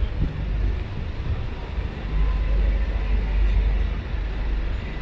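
City street traffic: a low engine and road rumble that swells about two seconds in as a vehicle passes, with faint voices of passers-by.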